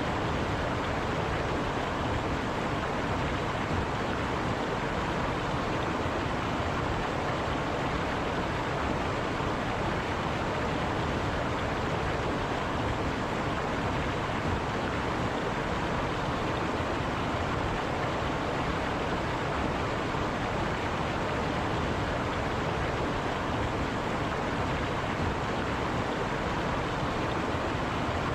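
River water rushing steadily over rocks, a constant even rush with no change.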